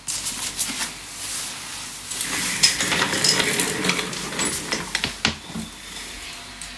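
Close handling noise: rustling and clattering with scattered light knocks right at the microphone, starting suddenly and busiest in the middle, with one sharp knock about five seconds in.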